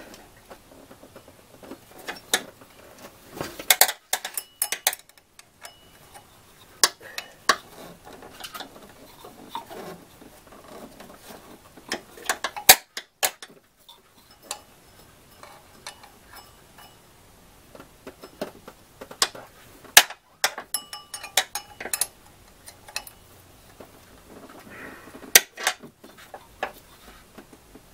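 Scattered sharp metallic clicks and clinks of hand tools tightening the bolts on a water pump pulley, with a long screwdriver wedged between the bolt heads to keep the pulley from turning.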